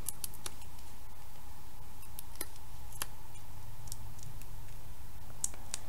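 Faint, scattered light clicks and ticks of paper cardstock pieces being handled and pressed together by hand, over a steady background hum.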